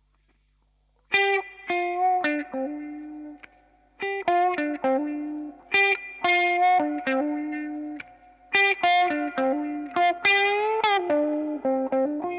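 Electric guitar played through a restored 1967 Jen Cry Baby wah pedal in a sound test. After about a second of near silence come short phrases of picked single notes, with one note sliding up and back down near the end.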